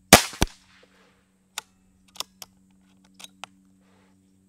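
Brocock Grand Prix .22 PCP air pistol fires one shot: a sharp crack with a short decay just after the start, then a quieter second crack about a third of a second later. Several light clicks follow over the next few seconds.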